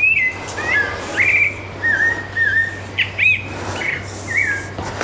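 Birds in an aviary enclosure calling: a run of short whistled notes, some sliding up and some sliding down, repeating every half second or so, with a few higher chirps among them.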